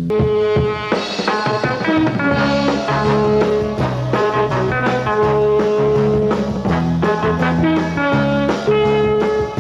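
Instrumental rock music with a steady beat and a repeating melodic riff; a held chord gives way to a new passage right at the start.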